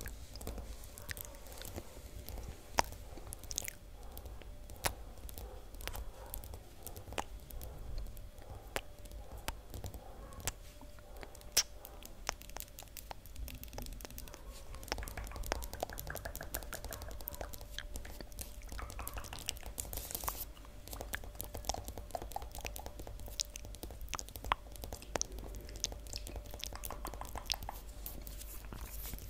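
Long fingernails tapping and scratching on a hard floor in quick, irregular clicks, mixed with close-up wet mouth sounds.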